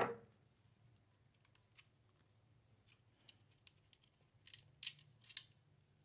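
Faint handling sounds as small PC-build parts are picked up and moved: a few light ticks, then three short, crisp scraping sounds near the end.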